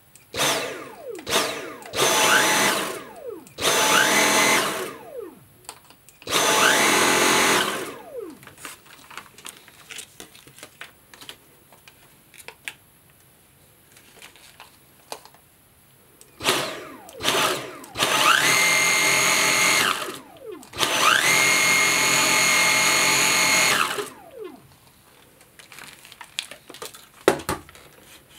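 Dyson V7 Motorhead cordless stick vacuum switched on and off in repeated short runs. Each run is a high whine that rises in pitch as the motor spins up, holds steady, and falls away as it winds down. A few brief blips come first, then longer runs of one to three seconds, the longest two in the second half.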